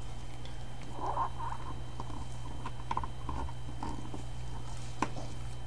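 Soft rubbing and handling noise of nitrile-gloved fingers working a rubber cup seal onto a brake master cylinder piston, with a few light clicks, over a steady low hum.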